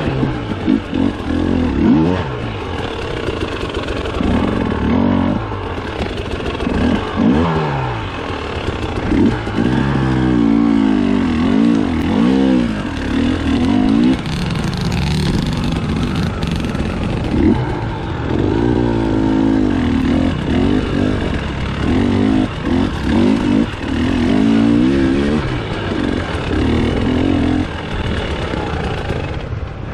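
Dirt bike engine working hard up a steep, rocky trail, its revs rising and falling in repeated throttle bursts every second or two.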